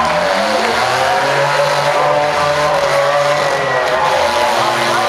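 Several demolition derby cars' engines running at once, revving so that their pitches rise and fall over one another.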